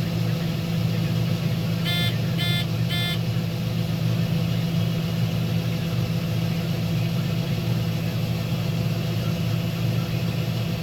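A combine harvesting corn, running with a steady low drone. About two seconds in, three short electronic beeps sound in quick succession.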